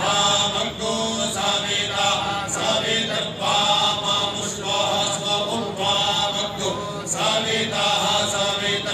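Vedic mantras chanted by male voices reciting together in unison, in short, steady phrases that follow one another without a break.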